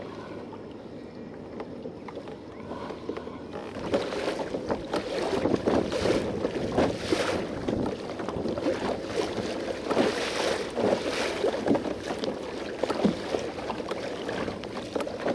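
Choppy harbour water slapping and splashing against the plastic hull of a Hobie Pro Angler 12 kayak under way, with wind buffeting the microphone. It is quieter for the first few seconds, then louder and busier from about four seconds in.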